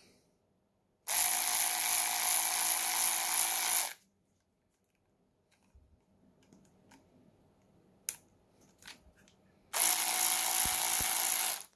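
Skil cordless 1/4-inch drive electric ratchet running in two bursts, one of about three seconds and a second of about two seconds near the end, each a steady motor-and-gear whine. The tool runs again on its newly replaced batteries. A few faint clicks fall between the bursts.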